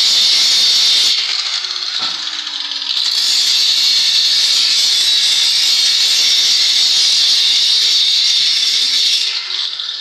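Electric arc welding on a steel frame: a loud, steady hiss. It drops back about a second in, picks up again around three seconds and runs on, dipping briefly near the end.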